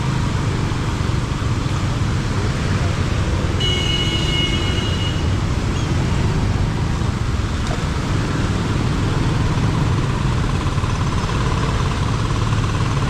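Steady road-traffic noise. A vehicle horn sounds for about a second and a half around four seconds in.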